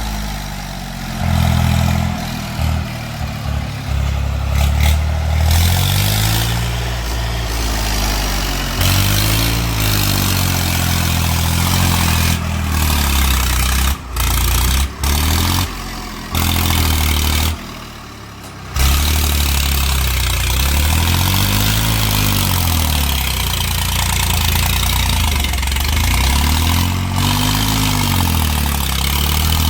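Heavy diesel engine running and revving up and down again and again, its pitch rising and falling every few seconds, with a few abrupt breaks in the sound partway through.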